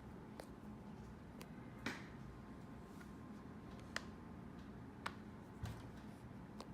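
2016 MacBook Pro laptop giving a series of sharp pops at uneven intervals, the loudest about two seconds in and several more after it. The owner ties the popping to temperature changes as the laptop warms up after a cold start.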